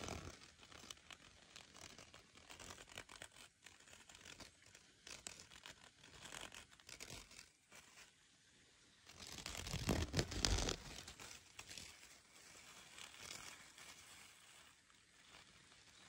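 Thin clear plastic bag crinkling and rustling as it is handled over grass, with a dragonfly trapped inside. The crinkling gets louder for a couple of seconds a little past halfway.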